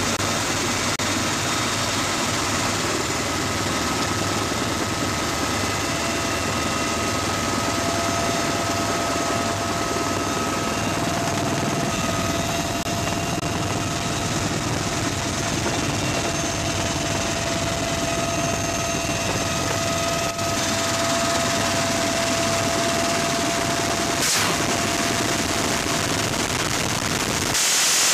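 Military helicopter running, a loud steady dense roar with a steady high whine over it.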